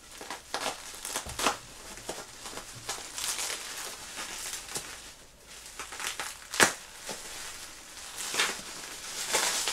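Plastic bubble wrap and packing material crinkling and rustling as a wine bottle is unwrapped, in uneven handling bursts, with one loud sharp snap about two-thirds of the way through.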